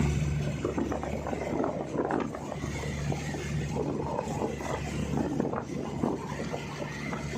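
A boat engine running steadily with a low hum, under the rush and splash of water and wind.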